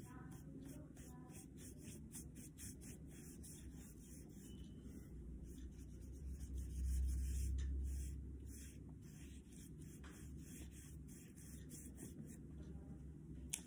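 Paintbrush rubbing over paper as poster paint is blended, a series of faint quick scrapes. A low rumble swells for about two seconds some six seconds in.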